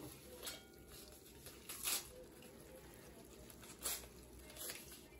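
Faint wet squishing of hands lifting and portioning rinsed, cooked thin wheat noodles in a metal strainer: a few soft, brief squelches over a low steady hum.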